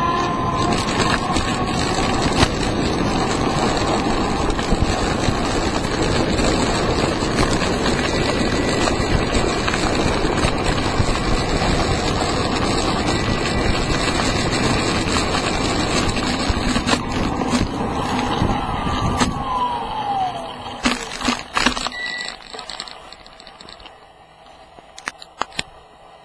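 Wheels of a home-built electric longboard rolling fast on asphalt, a steady rush of road noise with a faint electric motor whine. About twenty seconds in the whine falls in pitch as the board slows, a few knocks follow, and the noise dies away as the board comes to a stop.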